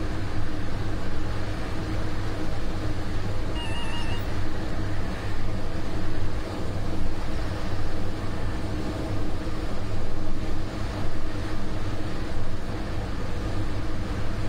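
Steady running noise of a train hauled by a MÁV V63 'Gigant' electric locomotive: wheels on the rails under a constant low electrical hum.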